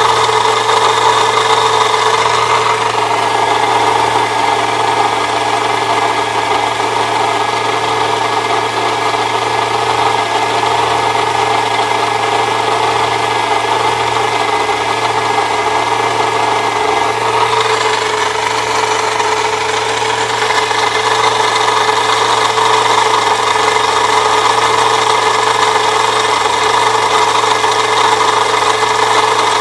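1998 Saturn SL2's 1.9-litre four-cylinder engine idling steadily, with a grinding, scraping noise from the accessory belt area that is still there with the A/C compressor bypassed on a shorter belt; the owner suspects the water pump.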